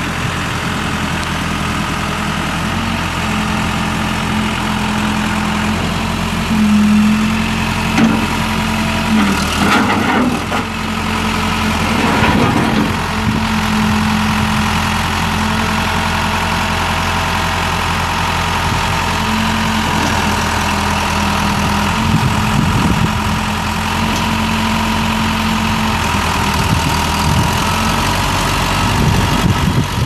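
1998 Case 580L backhoe's Case 4390 four-cylinder diesel engine running steadily as the machine drives. A few brief knocks and rattles come around ten seconds in.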